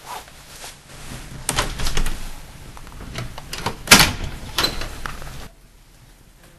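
A door being handled: a string of sharp knocks and clunks, the loudest about four seconds in, over a low rumble that stops abruptly.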